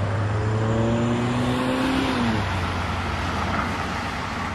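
Road traffic on a bridge: a car passes close by and drives off, its engine note dropping in pitch a little over two seconds in, over a steady hiss of tyres and traffic.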